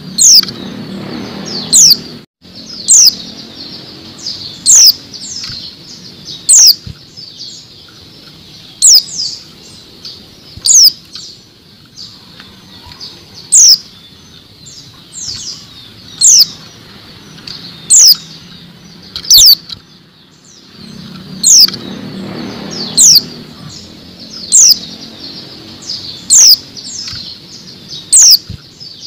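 Female white-eye (pleci) calling: a sharp, high chirp that falls quickly in pitch, repeated about every one to two seconds. Wings flutter against the cage near the start and again about two-thirds through. It is the kind of female call used to get male white-eyes singing.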